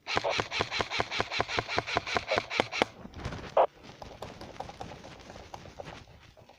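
Airsoft gun firing a rapid string of about eighteen shots, roughly six a second, for about three seconds, followed by a sharper single crack and then fainter, scattered shots.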